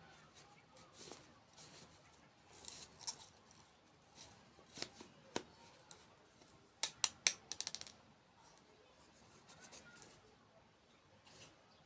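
Small objects being handled: scattered soft clicks and taps, with a quick run of sharp clicks about seven seconds in.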